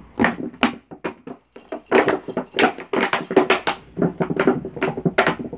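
A large dog chewing and pawing a thin clear plastic bucket on a wooden deck: irregular crackling crunches of the crumpling plastic mixed with knocks against the boards.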